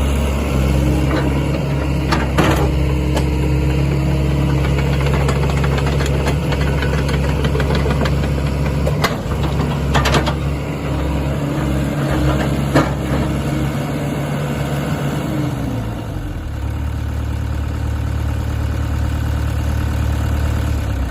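Sany SY75C-9 mini excavator's diesel engine running steadily while the machine is worked, with a few sharp knocks along the way. About three-quarters of the way through, the engine drops to a lower, quieter note, as if settling to idle.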